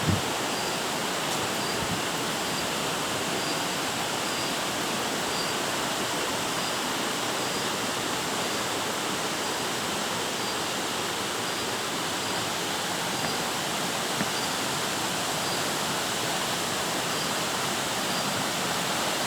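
Steady rush of falling water, an even unbroken hiss that does not change.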